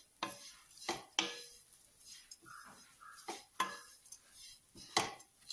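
Wooden spatula stirring grated coconut being dry-roasted without oil in a nonstick kadai, with about six sharp knocks and scrapes against the pan.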